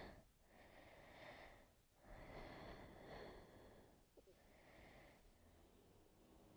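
Faint, slow breathing: about three soft breaths, close to the microphone.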